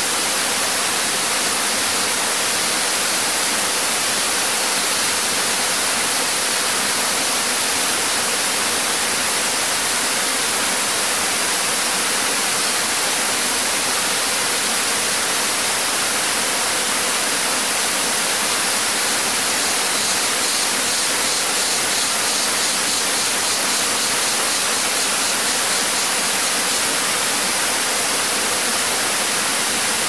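A low, multi-step river waterfall spilling over rock ledges into a pool: a steady, even rush of falling water.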